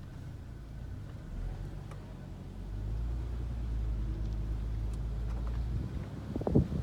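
Car engine and road rumble heard from inside the cabin, growing louder over the first few seconds as the car gets moving under hand-control throttle and then holding steady. A short sharp knock or click comes near the end.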